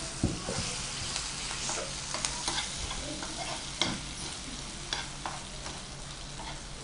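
Spoon stirring red chilli chutney into hot tempering oil with dried red chillies and curry leaves in a nonstick frying pan: a steady light sizzle from the still-hot oil, with scattered scrapes and taps of the spoon against the pan. The stove is off, so the sizzle comes from the pan's leftover heat as the chutney is mixed into the tempering.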